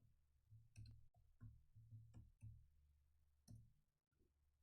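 Near silence: a handful of faint computer keyboard clicks, irregularly spaced, over a low steady hum.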